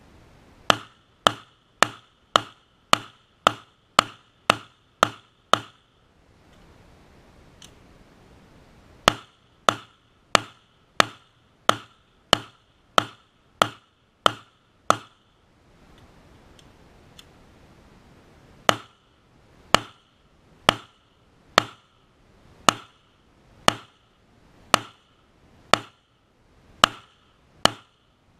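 Glock 17 9mm pistol firing Federal 115-grain aluminum-case ammunition in three strings of ten shots, separated by pauses for slide-lock reloads. The first string is fast, about two shots a second, and the last is slower, about one shot a second, as the shooter slows down for the smaller target.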